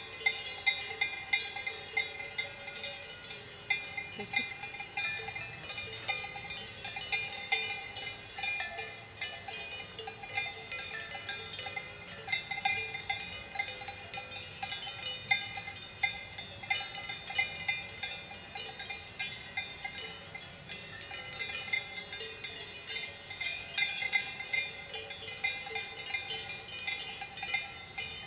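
Swiss cowbells on grazing cows clanking at irregular moments, several bells at different pitches ringing over one another in a continuous jangle.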